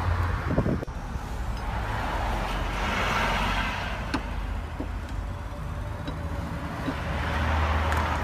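Road traffic passing by: two swells of car tyre and engine noise rise and fall, the first about three seconds in and the second near the end, over a steady low rumble. A few light clicks sound in between.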